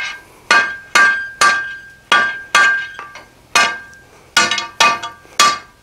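Blacksmith's hand hammer striking a hot steel bar on the anvil, about two blows a second, each with a short metallic ring from the anvil.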